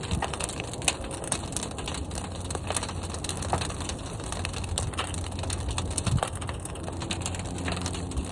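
Fire burning in a large kiln: a steady low roar with frequent sharp crackles and pops.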